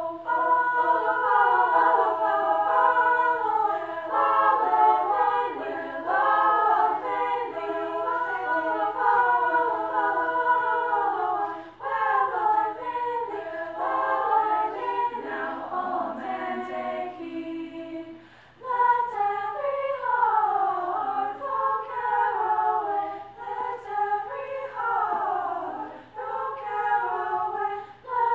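Women's vocal ensemble singing a cappella in three parts, with short breaks between phrases, the longest about two-thirds of the way through. The adjudicator hears good balance but uneven tuning throughout, with the close-voiced chords not locking in.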